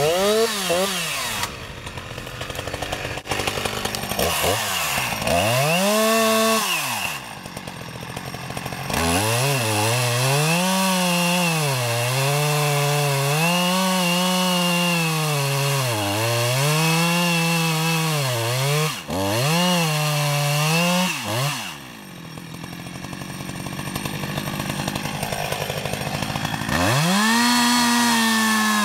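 Two-stroke chainsaw cutting into a tree trunk: short revs at first, then a long cut at high revs where the engine pitch dips and recovers about every two seconds as the chain bites. It drops back to idle a little past halfway, then revs up again near the end.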